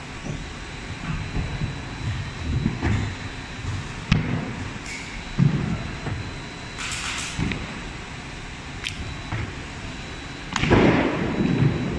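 Veneer clipper line running: uneven low machine noise with sharp clacks every few seconds from the clipper cutting the veneer, over a faint steady high whine, growing louder near the end.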